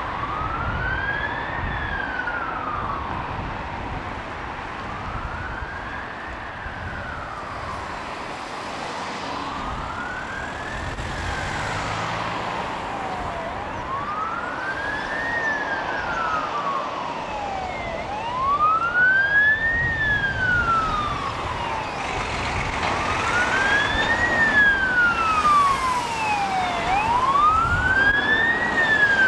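Fire engine siren on wail, rising and falling slowly about every four and a half seconds and growing louder as the appliance approaches, over the rumble of passing road traffic.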